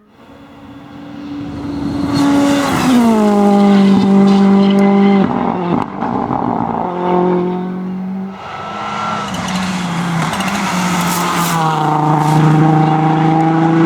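Rally car engine approaching and driving hard on a stage, growing loud over the first two seconds. Its pitch steps down sharply several times as it shifts gear under throttle, and it lifts off briefly about six seconds in before pulling again.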